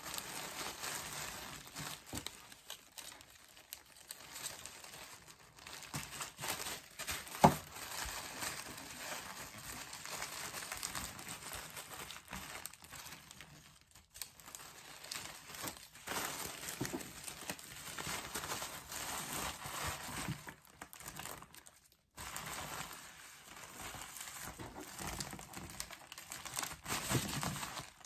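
Tissue paper crinkling and rustling as it is folded around a hair brush for packing, in irregular handling bursts. One sharp click stands out about a quarter of the way through.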